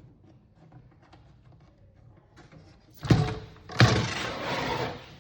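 Computer power supply unit being set down into a PC case: two loud thunks about three and four seconds in, the second followed by about a second of sliding and scraping as it goes into place.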